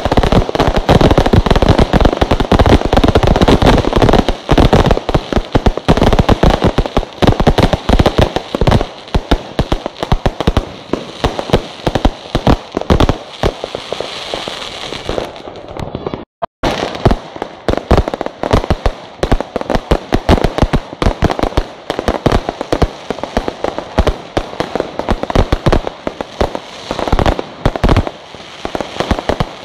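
A fireworks display: a dense, continuous barrage of bangs and crackling bursts. The sound drops out completely for a moment about halfway through, then the barrage resumes.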